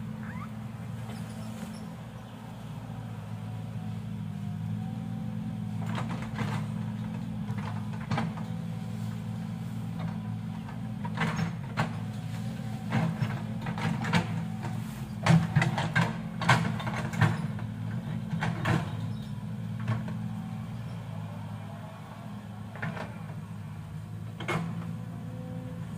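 Excavator engine running steadily, with a scatter of sharp knocks and clanks through the middle.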